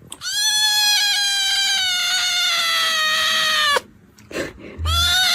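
A cat yowling in long drawn-out calls: one call lasts about three and a half seconds and slowly drops in pitch, then after a short pause a second long call begins near the end.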